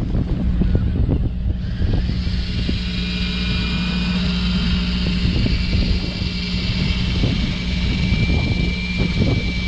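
Fishing boat's engine running steadily with a low hum, over irregular water wash. From about two seconds in, a thin high whine joins it.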